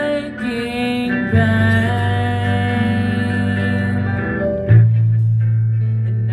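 A slow song: a voice singing long held notes over sustained low accompaniment.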